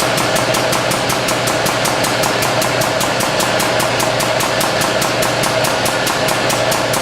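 Hydraulic press pump running steadily, a constant hum with a rapid even pulsing of about five or six beats a second, as the ram works down on CO2 cartridges.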